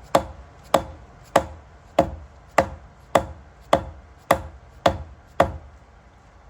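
A mallet tapping a Berkeley jet pump onto its splined driveshaft: about ten even knocks a little over half a second apart, stopping about five and a half seconds in. The pump is a snug fit on the splines and is not quite going on.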